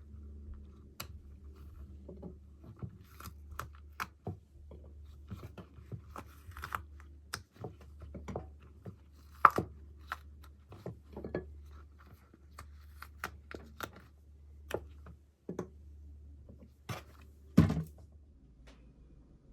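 Irregular light taps, knocks and crunches from handling food and kitchen utensils, with two louder knocks about nine and a half and seventeen and a half seconds in, over a steady low hum.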